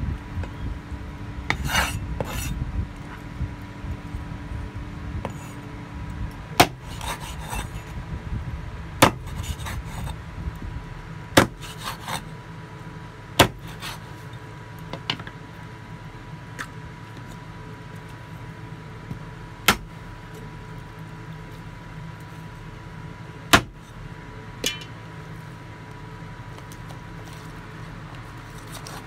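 Meat cleaver chopping a whole raw chicken on a wooden cutting board: sharp chops a few seconds apart, with scraping and rubbing of the meat and blade between them.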